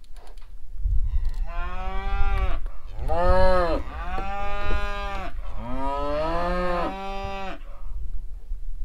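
Weaning-age calf bawling in several long calls in a row, each rising and then falling in pitch.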